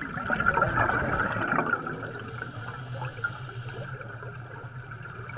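Underwater bubbling and gurgling as air bubbles rise through the water, a continuous wash that is a little louder in the first couple of seconds.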